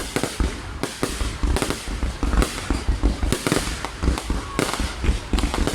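Fireworks display: a dense, irregular barrage of bangs, several a second, going on without a break.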